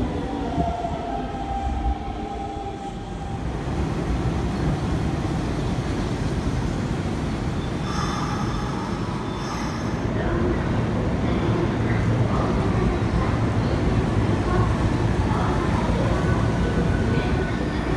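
Electric commuter trains running through station platforms on the Hanshin line. A motor whine falls in pitch over the first few seconds as a train slows, then a steady rumble of wheels on rail grows louder as trains pass close by.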